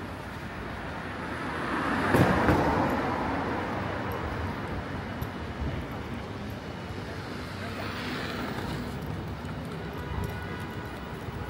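Street traffic: a vehicle passes close by, its noise swelling to a peak about two seconds in and then fading. A second, fainter vehicle passes about eight seconds in, over a background of voices.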